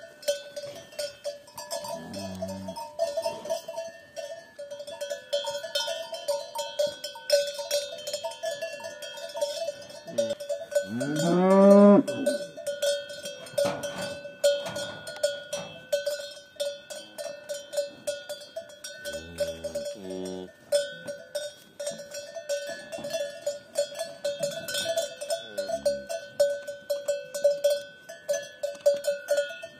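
Cowbells worn by cattle clank and ring without pause as the animals move. Near the middle a cow gives one long moo that rises and then falls in pitch, louder than the bells. Shorter, lower moos come early on, about two-thirds of the way through, and near the end.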